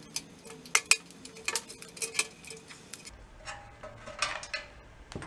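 Metal clinking and knocking as a starter motor is worked loose by hand and pulled off a Kohler twin engine, with two sharp clinks a little under a second in and smaller knocks after.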